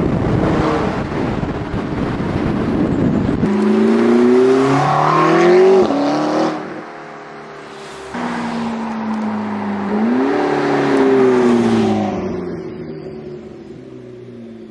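McLaren 650S twin-turbo V8 through an Akrapovic titanium exhaust. After a dense roar, the engine note climbs twice as the car accelerates hard, then drops off. The car comes again, revs up and passes, its note falling and fading away.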